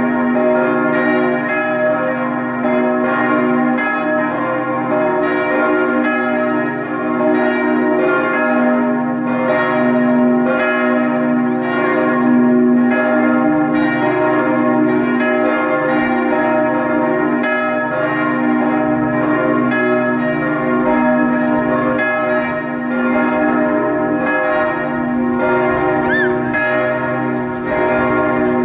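Church bells ringing a full peal, their strokes overlapping into one continuous, unbroken ringing.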